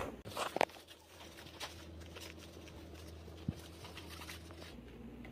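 Faint handling of a fabric air-compression leg massager sleeve as it is strapped onto a leg: a few short rustles in the first second, then mostly quiet room tone with one soft thump about three and a half seconds in.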